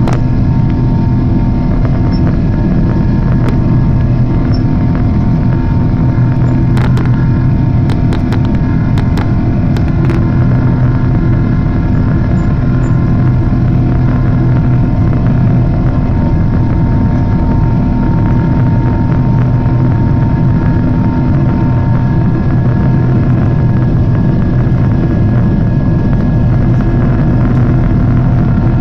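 Cabin noise of a Japan Airlines Boeing 777-300 climbing after takeoff: a loud, even roar of the engines and rushing air, with a low steady hum under it. A few light clicks come about seven to ten seconds in.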